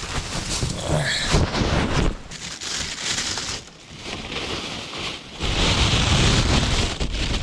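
Loud rustling and handling noise close to the microphone, coming in uneven surges with a lull about four seconds in.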